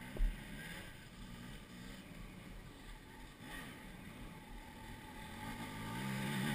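A dirt bike engine revving at a distance, its pitch wavering, growing louder near the end as the bike comes closer. One short knock about a quarter of a second in.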